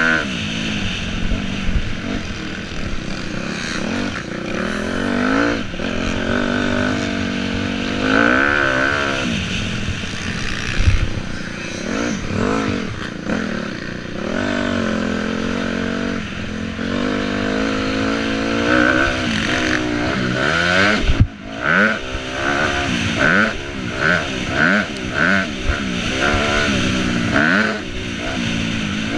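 Motocross dirt bike engine heard from on board, revving up and falling back again and again as the rider accelerates, shifts and rolls off through the track. In the last third the throttle comes on and off in a quick series of short bursts.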